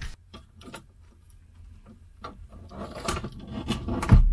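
Fuel pump hanger assembly being handled and fitted into the fuel tank opening: scattered plastic and metal clicks and rattles, thicker in the second half, with a heavy thump near the end.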